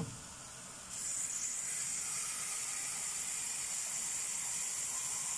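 Steady hiss of buckwheat groats toasting dry in a steel pot over a high gas flame, starting suddenly about a second in.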